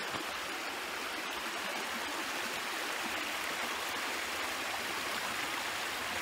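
Shallow mountain stream running over rocks in small riffles: a steady rush of flowing water.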